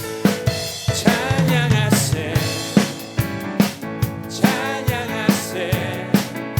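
Live worship band music: a drum kit keeps a steady beat, with strikes a little under a second apart, under singing voices and instruments.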